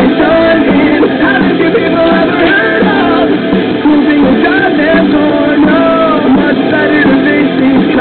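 A guitar strummed with a man singing loudly over it, in a cover of a rock song.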